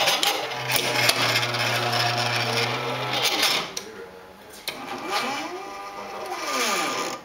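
Electric motors driving the robot's threaded lead screws, a whine with several overtones. It runs steadily with a low hum for the first three seconds or so, dips briefly, then rises and falls in pitch as the carriage speeds up and slows down, stopping suddenly at the end.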